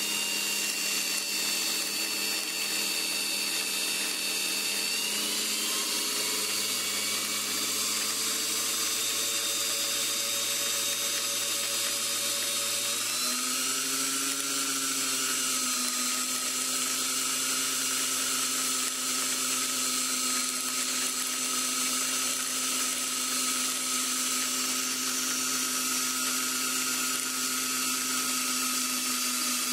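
Singer 301A sewing machine's motor running under the foot pedal, spinning the bobbin winder, whose rubber tire is pressed against the disengaged flywheel. A steady whine that steps up in pitch about five seconds in and again, more sharply, about thirteen seconds in.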